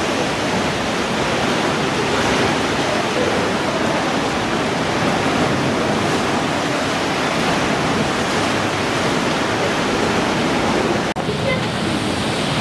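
Mediterranean surf washing against rocks: a loud, steady rush, briefly cut off about eleven seconds in.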